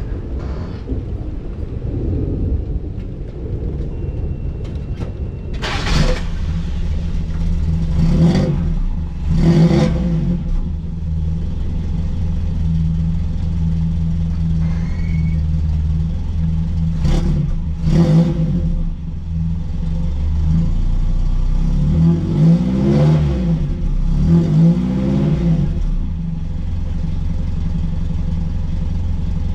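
Exhaust of a 1979 Toyota Corolla Trueno's four-cylinder engine idling, with quick throttle blips about six, eight, ten, seventeen and eighteen seconds in. Near the end come two longer revs, each rising and falling back to idle.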